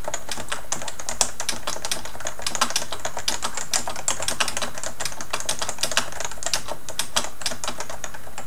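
Typing on a Topre Realforce 103UB keyboard with 55-gram electrostatic capacitive switches, a steady run of keystrokes, several a second.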